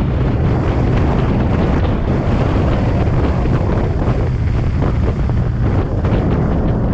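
Twin-turbocharged Nissan 350Z's V6 engine running at a fairly steady pitch while driving, with wind buffeting the microphone.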